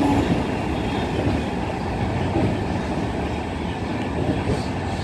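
Passenger express train running past, its coaches and wheels making a steady, dense noise on the track.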